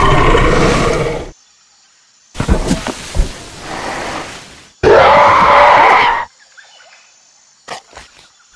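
Dubbed-in dinosaur roar and growl sound effects for a clay Ceratosaurus: a loud roar at the start, a rougher, choppier growl with sharp clicks, then another loud roar about five seconds in. A few faint clicks come near the end.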